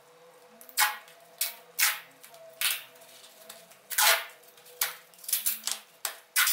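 Strips of adhesive tape pulled off a roll and torn, about nine short ripping sounds starting about a second in, as the tape is stuck down over foil-wrapped heating-mat wire on foam insulation board.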